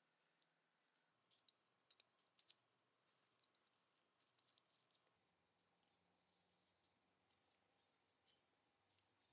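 Faint, scattered light metallic clicks and taps from the small steel parts of a Colt Vest Pocket .25 pistol being handled in gloved hands, with two sharper clicks near the end.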